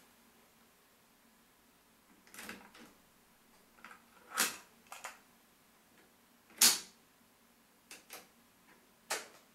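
Clicks and clacks from a Philips F6121 cassette deck's eject mechanism and cassette door as the cassette is ejected, taken out and the door pushed shut. About seven separate sharp clicks, the loudest clack a little under seven seconds in.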